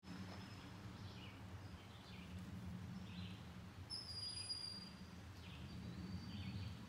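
Faint outdoor ambience: a steady low rumble with scattered faint bird chirps and a few thin, high, held whistles.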